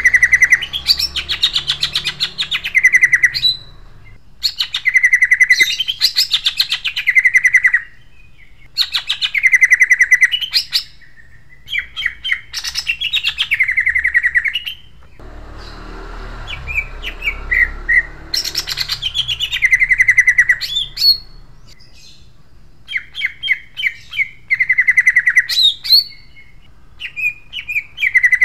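Male greater green leafbird (cucak ijo) singing a rough, sharp song in repeated phrases a few seconds long. Each phrase is made of rapid chattering notes and quick whistled sweeps, with short pauses between phrases.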